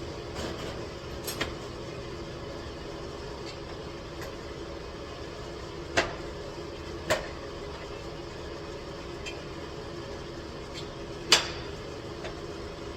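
A steady low hum with a few sharp knocks or clinks over it: two about halfway through and the loudest one near the end.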